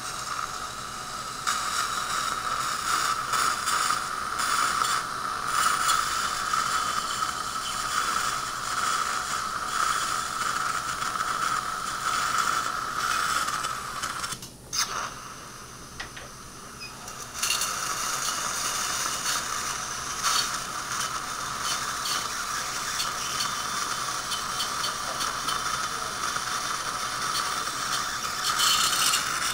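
Surgical implant motor and handpiece turning a twist drill into upper-jaw bone: a steady whine over the hiss of saline irrigation and suction. It stops for about three seconds around the middle, then runs again with the next, wider drill.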